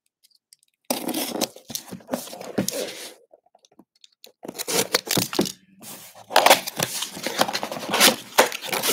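Box cutter slitting packing tape on a cardboard box, with crackling tearing tape and scraping cardboard in short bursts. Near the end the box is pulled open with louder, more continuous tearing and rustling.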